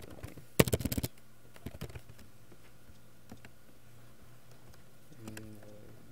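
Computer keyboard typing: a quick run of keystrokes about half a second in, a few more soon after, then only a few scattered clicks.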